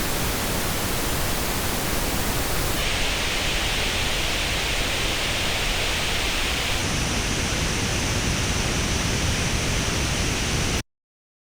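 Steady pink-noise test signal played through earphones and recorded in an artificial ear, used to compare frequency response. Its tone colour changes abruptly twice, about 3 s in and about 7 s in, as the recording switches to a different playback, and it cuts off suddenly near the end.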